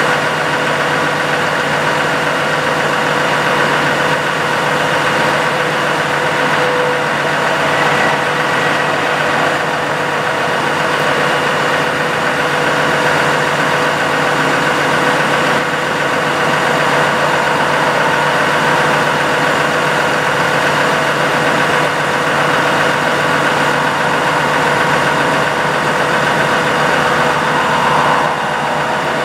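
Truck diesel engine running steadily while the Versalift aerial boom is operated, with a constant whine on top of the engine; the level dips slightly near the end.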